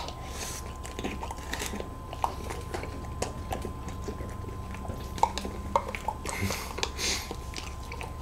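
Quiet eating of ice cream: soft chewing and mouth sounds, with scattered small clicks of a spoon against a plastic parfait cup and a few short breathy swishes.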